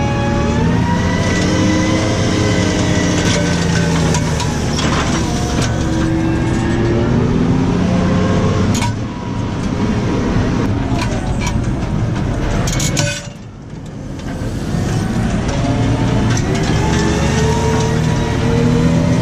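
New Holland T6.155 tractor engine running under load while ploughing, its note wavering. In the second half the revs drop away twice, the second time sharply, with a few clicks or clanks, then build back up.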